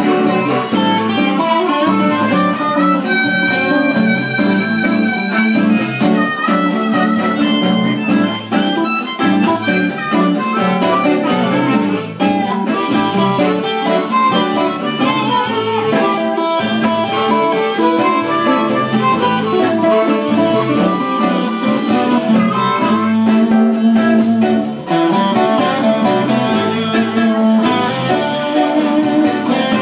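Live band music: a harmonica cupped against a vocal microphone plays lead over electric guitars and drums, loud and steady throughout.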